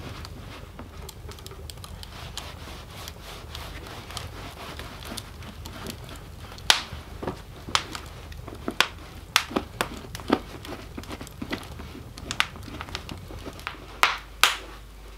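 Log fire in an open hearth crackling, with irregular sharp pops, mostly from about seven seconds in, over the soft rubbing of a cloth working dubbin into a leather hiking boot.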